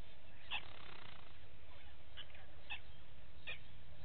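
Short high animal chirps, about four of them at irregular intervals, over a steady low hum.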